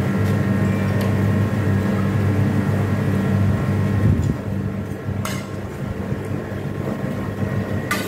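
Steady low machine hum, with a few sharp clinks of a metal spoon against a large steel serving platter, the clearest about five seconds in.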